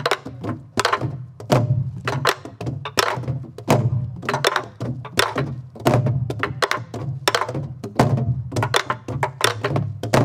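A group of sori-buk, the Korean barrel drums that accompany pansori, played together in a jangdan rhythm. Deep strokes on the hide heads mix with sharp stick clicks on the wooden shell, with the strongest beats about every 0.7 seconds.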